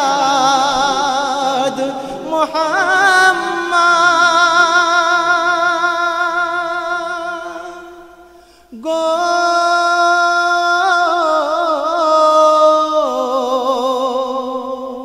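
A voice singing a Bengali Islamic gazal in long held notes with a wavering vibrato, sliding from note to note. It fades away about eight seconds in, and a new held note starts a moment later.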